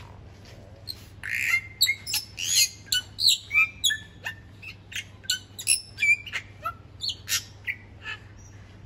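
Bali myna calling: a rapid run of short harsh squawks mixed with whistled notes that sweep up or down, starting about a second in and stopping near the end.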